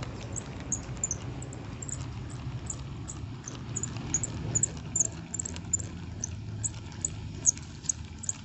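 Short, very high-pitched chirps from a small wild creature, repeating irregularly two or three times a second, over a steady low rumble.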